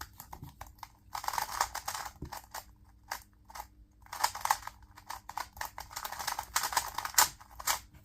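A 2x2 speed cube being turned fast during a timed solve: runs of rapid plastic clicking and clacking from the layers, broken by short pauses.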